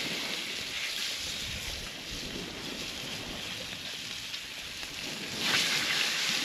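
Coral trout fillets sizzling in a hot frying pan over a campfire. The sizzle swells louder about five seconds in as more pieces go into the pan. Wind is on the microphone.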